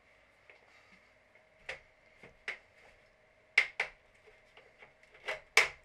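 Sharp plastic clicks and knocks from an Xbox One's snap-together case as a butter knife pries at the seam and the shell's clips are worked loose: about six clicks, the loudest around the middle and near the end.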